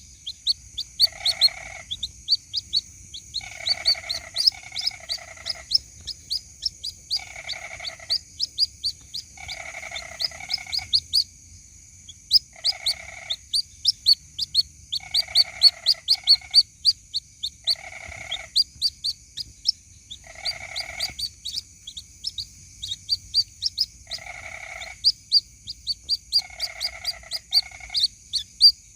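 White-breasted waterhen chicks calling for their mother, used as a lure: a rapid stream of high, sharp peeps several times a second, broken every second or two by a shorter, lower, buzzier call. A faint steady high hiss runs underneath.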